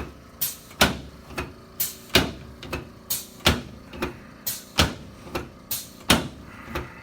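A rapid series of sharp knocks, about sixteen in all, two to three a second at uneven spacing.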